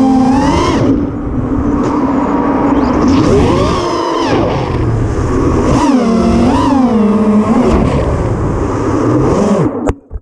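FPV racing quadcopter's four brushless motors (HobbyWing 2207 1750kv) and props whining, the pitch rising and falling over and over with throttle. Near the end a few knocks, then the motor sound drops away.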